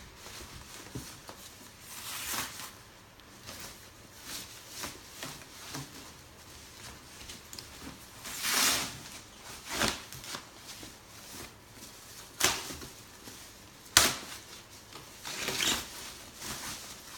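Packaging being handled during an unboxing: scattered bursts of rustling and crinkling, with one sharp click or knock about fourteen seconds in, the loudest sound.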